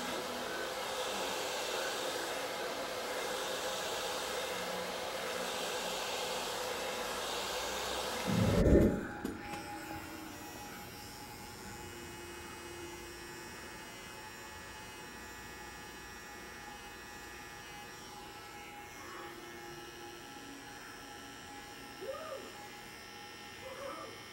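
Hand-held hair dryer blowing steadily, stopping with a thump about nine seconds in. After that, the quieter steady buzz of electric hair clippers cutting hair.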